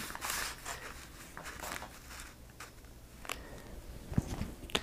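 Faint rustling and sliding of construction paper against a paper bag as they are handled and lined up with a ruler, with a few light clicks near the end.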